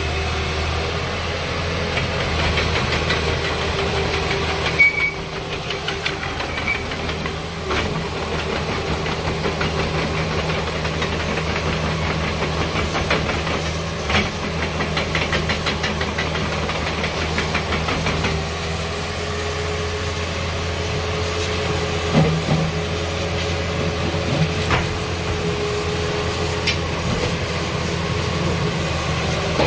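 Komatsu PC56-7 mini excavator's diesel engine running steadily while the machine is worked, with a few separate knocks and clanks.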